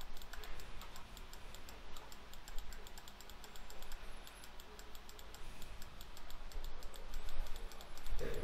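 Light clicking of a computer keyboard and mouse over a faint, even ticking of about five ticks a second.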